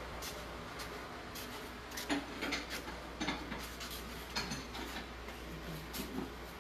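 Scattered light clicks and clinks from work in a car workshop, about one a second, over a steady low hum.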